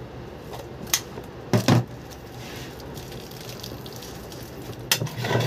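A few sharp clinks and knocks of hard objects: one about a second in, a louder pair just after it, and another near the end, over a steady low hiss.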